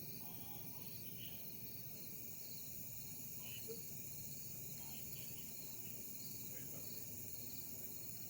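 Outdoor ambience: insects chirping in a steady, evenly repeated high-pitched pulse, with faint background noise.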